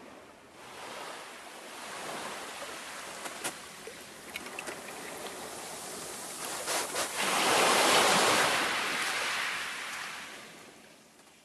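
Small waves washing up a shingle beach, one surge swelling to its loudest about eight seconds in and draining away, with a few sharp ticks along the way.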